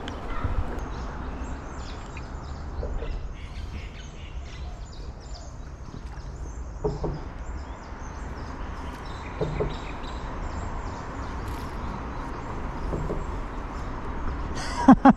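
Small birds chirping and calling over a steady low background rumble, with a few short, lower calls scattered through. A sudden loud burst of sound right at the end.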